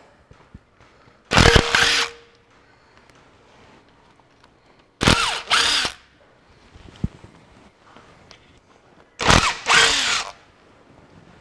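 Makita cordless nut gun (impact driver) undoing bolts on an engine's timing cover, in three short bursts of hammering about a second long each.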